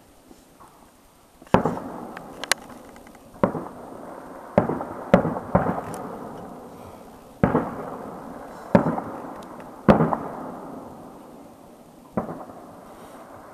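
Aerial firework shells bursting: about ten sharp bangs at uneven intervals, some in quick succession, each followed by a rolling echo that dies away.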